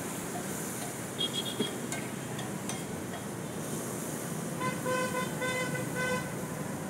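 A vehicle horn honking in a quick run of short toots about two-thirds of the way in, with a few short high beeps about a second in. Underneath is a steady hiss of street traffic and food sizzling on a hot iron griddle.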